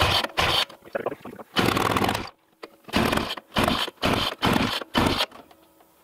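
Snowmobile two-stroke engine cranked over and over on its pull-start, about eight short whirring pulls with a pause in the middle, without catching. The engine won't start on its rebuilt carburettor.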